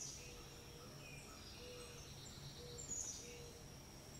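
Faint birds chirping, a few short high calls and quick falling whistles, over a low steady hum of background noise.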